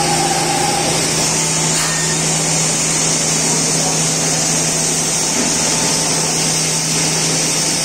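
Steady running noise of a Bacci Master CNC machining centre and its workshop equipment: an even high hiss over a low hum, with a faint whine that stops about a second in.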